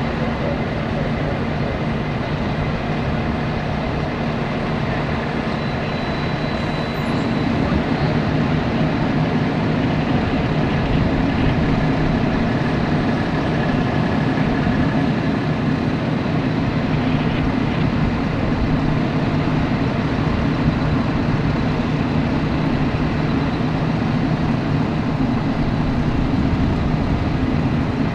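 A large vehicle engine running steadily with a low, even rumble, getting louder about seven seconds in.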